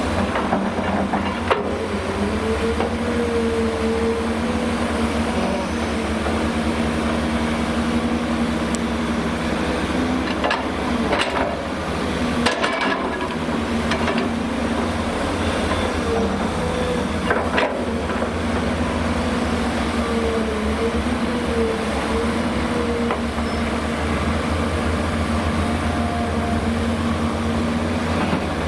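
Hyundai Robex 300LC-9S crawler excavator working: its diesel engine runs steadily, the pitch wavering as the hydraulics take load, with a few sharp metallic clanks of the bucket and rock, the loudest about twelve seconds in.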